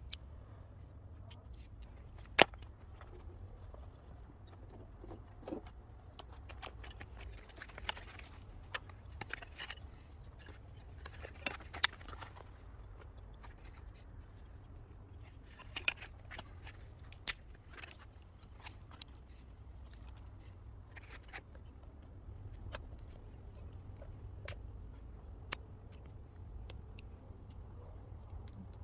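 Irregular sharp clicks, snaps and short scrapes from a small bonfire being kindled with milk-carton kindling and wood, with the loudest snaps about two seconds in and near twelve seconds, over a steady low rumble.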